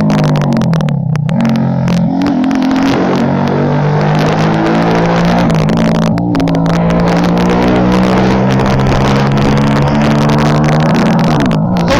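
Hero Splendor's 97cc single-cylinder four-stroke engine running through an Akrapovic exhaust with its dB killer removed, under way. Its pitch dips and climbs again in the first couple of seconds, holds steady at cruising speed, and falls near the end.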